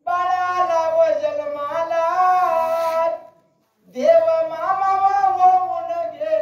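Dhangari ovi singing: a high-pitched male voice chanting long, held, wavering phrases through a loudspeaker, breaking off a little after three seconds and starting a second phrase about a second later.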